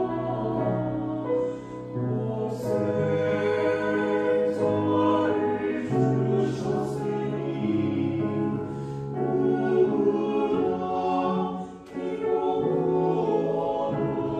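A small mixed church choir of women's and men's voices singing a Korean hymn in parts, holding long chords, with short breaks between phrases about two seconds and twelve seconds in.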